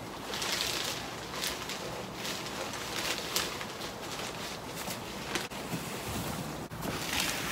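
Wood shavings rustling as they are handled out of a bag and poured into a rabbit cage, coming in repeated swells, with a few light knocks.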